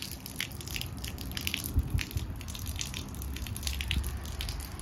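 Old half-round plastic gutter stop end being prised off, crackling and scraping in a run of irregular sharp clicks, as water spills out of the opened gutter end.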